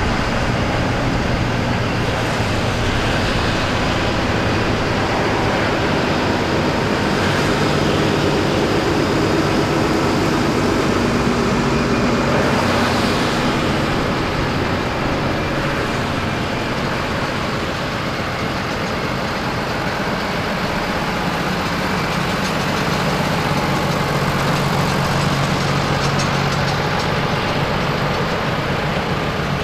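Farm tractors driving slowly past one after another, their diesel engines running steadily, with tyre noise from the wet road.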